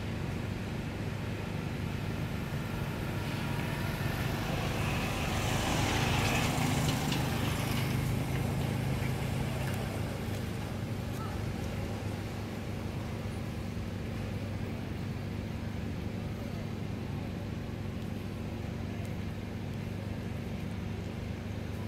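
Road traffic: a steady low engine hum, with a passing motor vehicle swelling up about five seconds in and fading away a few seconds later.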